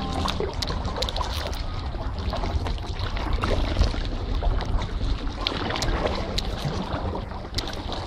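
Sea kayak being paddled: scattered paddle splashes and drips on the water, over a steady low rumble of wind on the microphone.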